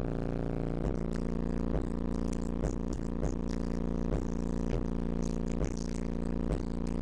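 Bass-heavy music played loud through two 12-inch car subwoofers, heard inside the car's cabin, with steady low notes and a beat hit roughly once a second.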